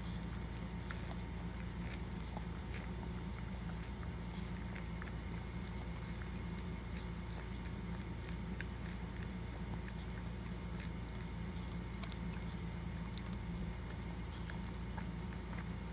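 Maltese mother dog licking her newborn puppy clean: scattered faint licking and mouthing clicks over a steady low hum.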